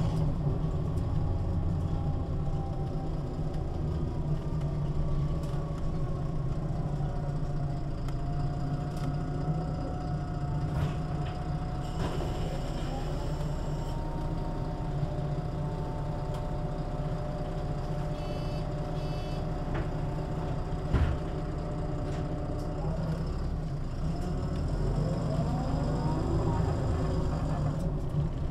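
MAN NL 283 Lion's City city bus heard from inside the passenger cabin: a steady low engine rumble with an engine and ZF gearbox whine that falls as the bus slows, holds steady, then rises again as it picks up speed near the end. A few short high beeps come about two-thirds of the way through, followed by a single thump.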